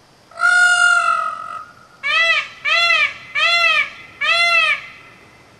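Male Indian peafowl (peacock) calling loudly: one long, steady-pitched wail that fades, then four shorter calls in quick succession, each rising and falling in pitch.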